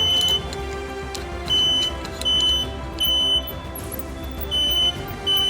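Smoke alarm sounding its three-beep pattern: short high beeps in groups of three, with a pause between groups, over background music.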